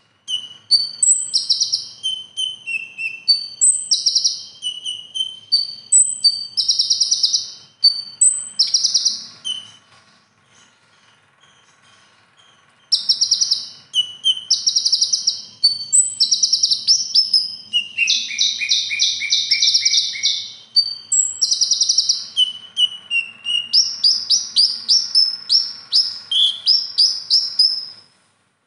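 Male purple-throated sunbird (kolibri ninja) singing a rapid, varied song of high chirps, short slurred whistles and dense buzzy trills, in the mimicry-filled style (isian) that songbird keepers prize. The song pauses for about three seconds near the middle, then resumes just as busily.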